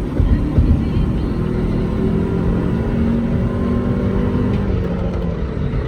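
Honda CR-V's 2.4 L K24A1 four-cylinder engine pulling under full-throttle acceleration, running steadily. It pulls freely with no limp mode, the VTEC solenoid working after cleaning.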